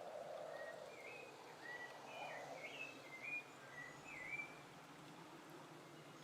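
Bird song: a run of short whistled, slurred notes that stops about four and a half seconds in, over a faint steady hiss.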